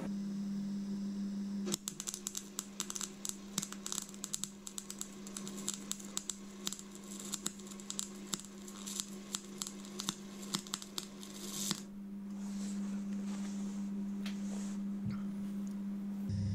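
Clarke 135TE Turbo MIG welder tack-welding 25 mm steel box section: the arc's rapid, irregular crackle starts about two seconds in and stops about twelve seconds in, over a steady low hum.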